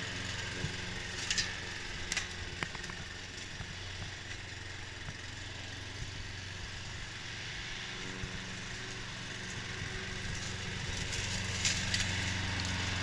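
Craftsman all-wheel-drive push mower's Briggs & Stratton QPT engine running steadily under load while mowing, with a few brief sharp ticks.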